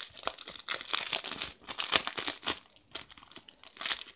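Plastic shrink-wrap film crinkling and tearing as it is peeled off a boxed CD set, in quick irregular crackles.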